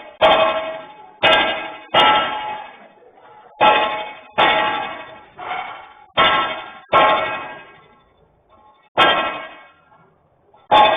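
Metal struck with a hammer: about ten ringing clangs at irregular intervals, each dying away over about a second, with a longer gap a little before the end.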